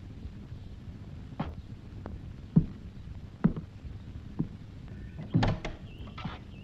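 Slow, evenly spaced footsteps on a wooden floor, about one a second, with a short creak near the end.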